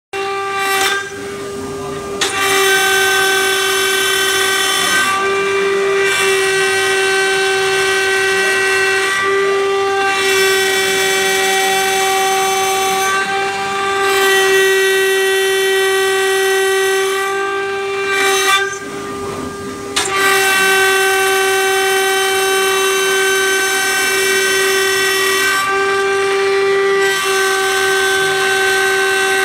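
High-speed router spindle of a flatbed CNC cutting plotter milling acrylic sheet: a steady high whine with a harsher cutting noise over it. The cutting noise drops away briefly every four seconds or so, and the whole sound dips about a second in and again about two-thirds of the way through.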